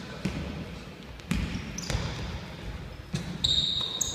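A basketball being dribbled on a wooden gym floor, a few bounces about a second apart, with a sneaker squeaking on the floor near the end.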